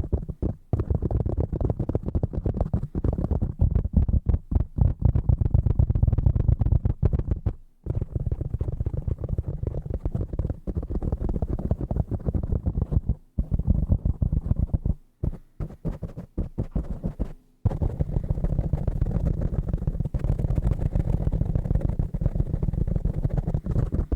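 Fast, aggressive fingertip tapping on objects around a desk: a dense run of many low, dull taps a second, broken by a few short pauses.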